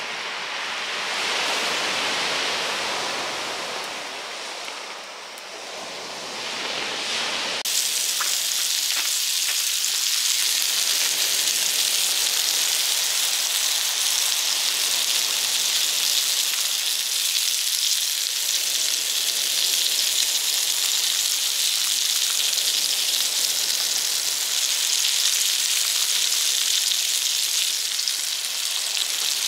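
Shiitake mushrooms frying in butter in a pan, a steady high sizzle that comes in abruptly about seven and a half seconds in. Before it, a rushing noise swells and fades.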